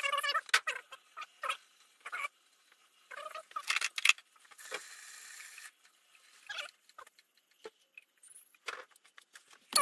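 Air and water sputtering and gurgling out of a boiler purge hose into a bucket of water, in irregular short bursts, some pitched, with about a second of steady hiss near the middle. This is trapped air being bled out of the hot-water heating system.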